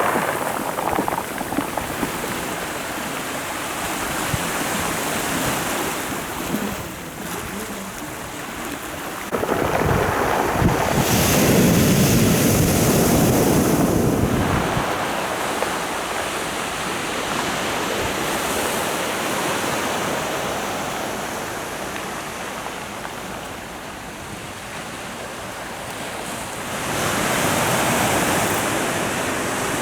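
Sea waves breaking and washing up the shore, with wind on the microphone. A bigger wave surges in about nine seconds in and dies away by about fifteen, and another rises near the end.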